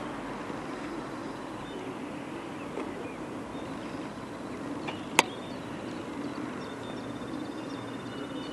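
Steady low outdoor rumble. One sharp click comes about five seconds in, and faint high chirps, likely from small birds, sound near the end.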